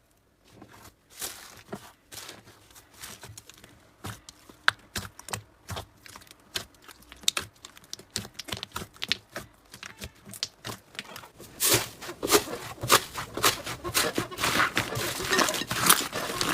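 Hands working slime: a string of small, irregular clicks and crackles, sparse at first and coming thicker and louder from about twelve seconds in.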